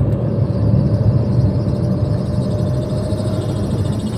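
Maruti Suzuki Alto 800's three-cylinder petrol engine running steadily, a low, even drone with a faint steady tone above it.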